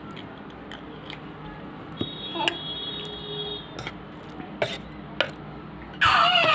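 A baby's loud wavering squeal breaks out about six seconds in. Before it there are only small rustles and clicks, with a faint high steady tone for a couple of seconds.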